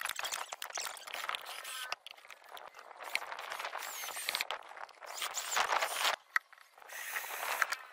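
Cordless drill driving small screws into a cabinet door's hinge, running in short bursts of about a second each in the second half. Before that come knocks and scraping as a plywood panel is pushed into place.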